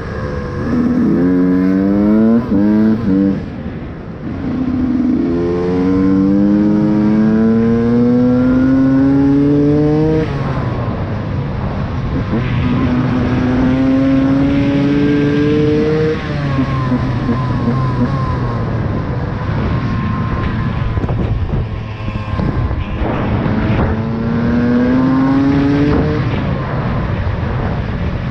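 KTM EXC 125 two-stroke enduro engine with a Scalvini expansion-chamber pipe, heard from on board, revving hard under acceleration. Its pitch climbs in several long rising pulls and drops back between them as the rider shifts gears and rolls off the throttle, with a few quick short steps near the start.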